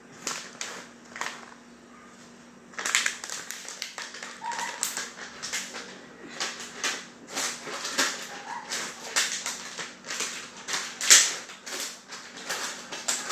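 Irregular sharp clicks and knocks of off-camera handling in a kitchen, starting about three seconds in and going on unevenly, over a steady low hum.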